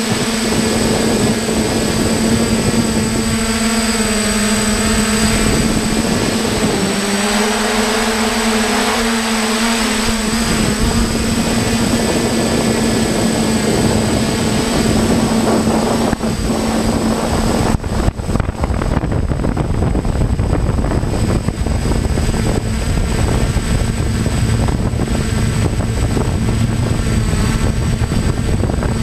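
Multirotor drone's electric motors and propellers humming steadily with a thin high whine above; the hum's pitch wavers for a few seconds early on as the motors change speed. About eighteen seconds in the hum fades under a rough rush of wind buffeting the microphone.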